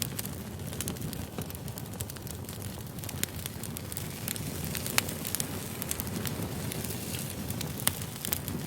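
Wood fire burning: a steady low rumble of flames with irregular sharp crackles and pops from the burning firewood.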